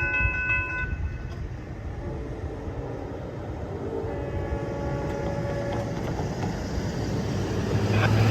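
Florida East Coast Railway freight locomotive's multi-chime air horn: one sounding cuts off about a second in, and a second sounding runs from about two to six seconds, over the low rumble of the train, which grows louder toward the end.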